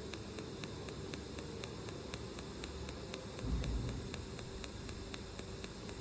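TIG welding arc on stainless steel: a steady hiss with a regular fine ticking about five times a second. A low thump comes about three and a half seconds in.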